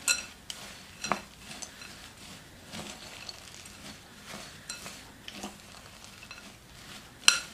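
A spoon stirring a granola mixture of rolled oats and chocolate chips in a glass mixing bowl: a dry rustling scrape with the spoon clicking against the glass now and then, the sharpest click near the end.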